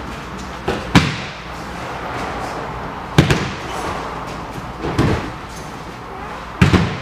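Heavy thuds of aikido attackers being thrown and landing on the dojo mat during multiple-attacker randori: about five sharp impacts a second or two apart, the last two close together near the end.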